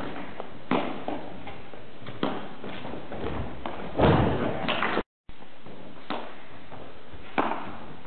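Footbag net rally: a string of separate thuds from kicks of the footbag and players' feet landing on a wooden gym floor, echoing in a large hall, the heaviest thud about four seconds in. The sound cuts out for a moment just after the loudest thud.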